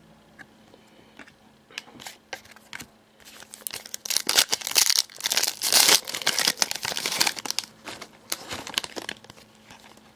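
A foil trading-card pack wrapper from a box of 13-14 Elite Basketball crinkling and tearing as it is torn open by hand. A few light clicks come first, then a dense crackle for about six seconds starting some three seconds in.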